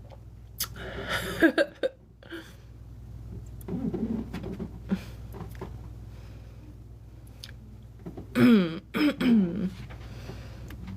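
A woman belching three times: a loud burp about a second in, a lower, shorter one near four seconds, and a long, loud burp broken into several pulses whose pitch falls, near the end.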